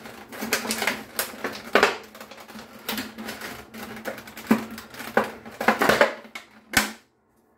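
Stiff plastic packaging being pulled and pried open by hand: irregular crinkling, crackling and clicking, with a sharp snap near the end.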